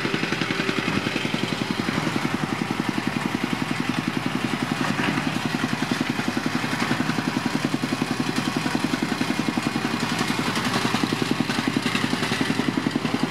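Construction machinery engine running steadily with a fast, even chugging pulse.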